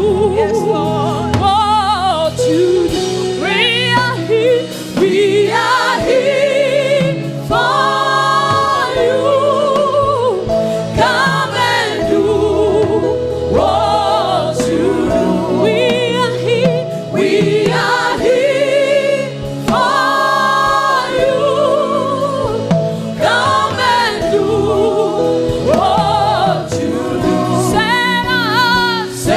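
Gospel worship music: voices singing phrases with vibrato over steady instrumental backing.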